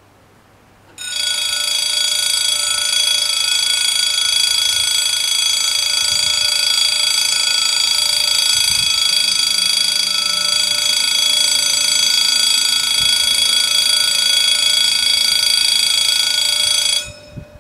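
Two electric level-crossing bells ringing continuously in a steady, high-pitched ring: the warning that a train is approaching. They start about a second in and cut off suddenly near the end, as the barriers finish coming down.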